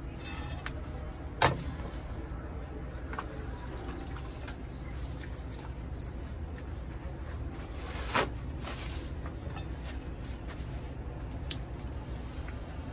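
A heavy knife knocking twice on a wooden chopping board, about a second and a half in and again about eight seconds in, over a steady low background hum.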